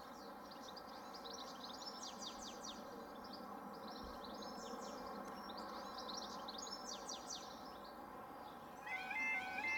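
A small songbird singing in repeated quick, high chirping phrases over a faint steady background hum. About nine seconds in, the level crossing's electronic alarm starts, warbling back and forth between two pitches as the crossing begins to lower.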